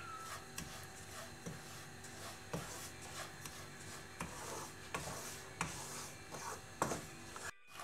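Wooden spatula scraping and stirring dry semolina (rava) around a nonstick pan, a soft rasping rustle with a light scrape or knock every half second to a second. This is the rava being dry-roasted in ghee until golden brown.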